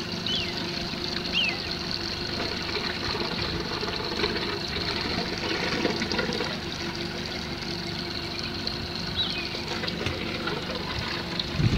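Tour boat's engine idling steadily while the boat sits beside a crocodile in the river, with a few faint high chirps over it.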